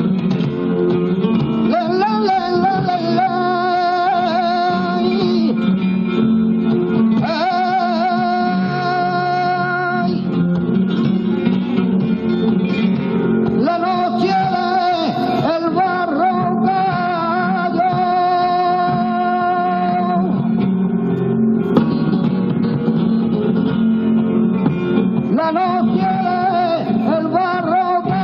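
Flamenco cante: a male singer's long, wavering melismatic phrases over flamenco guitar accompaniment, the voice dropping out between phrases while the guitar plays on.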